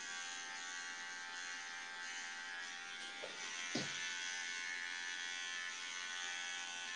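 Electric hair trimmer buzzing steadily as it takes small stray hairs off a man's scalp, with two light ticks about three and four seconds in.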